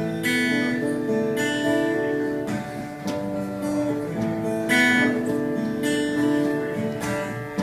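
Acoustic guitar playing the intro to a song: slow strummed chords, each struck and left to ring.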